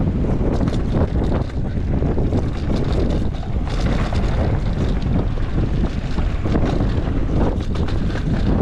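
Wind buffeting the microphone while a mountain bike rolls over rough slickrock: a steady low rumble of wind and tyre noise, broken by frequent small clicks and rattles from the bike.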